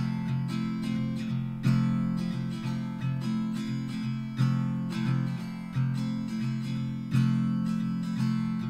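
Background music: a strummed acoustic guitar playing steady chords.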